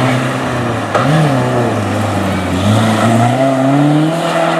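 Rally car engine running hard under load, with a quick blip in revs about a second in, then climbing steadily as it accelerates.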